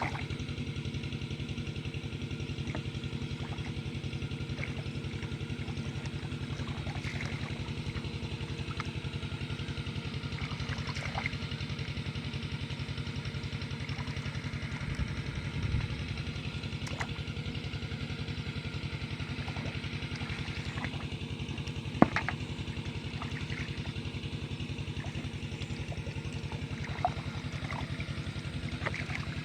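A small engine running steadily at an even speed, with a sharp knock about 22 seconds in.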